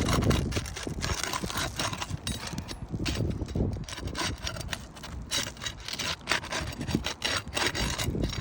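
Asphalt roof shingles being pried apart with a tool slid underneath, tearing the adhesive seal strip: repeated rough scraping and rubbing strokes.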